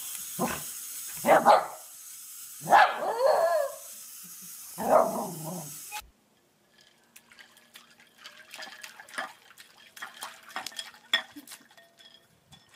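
A small dog barks four times over a steady hiss. After an abrupt cut about halfway through, there are faint clinks and splashes as a puppy paws ice cubes out of a bowl of water.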